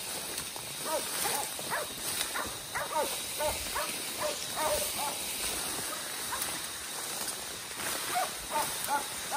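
Hog dogs, black mouth curs, barking over and over in short sharp barks, the steady bark of dogs baying a hog. The barking starts about a second in, pauses for a few seconds in the middle and starts again near the end.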